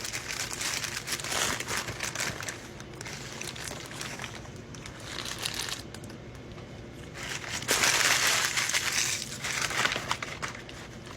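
Paper sandwich wrapper crinkling and rustling as it is handled and opened, in irregular bursts that grow louder for a couple of seconds near the end.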